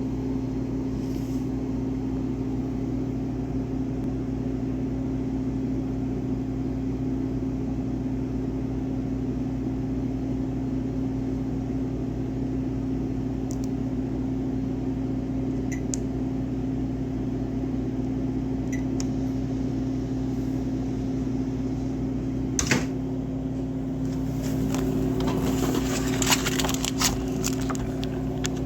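A steady mechanical hum with a strong low tone. About three-quarters of the way through there is a single sharp click, then several seconds of crackling and rustling near the end.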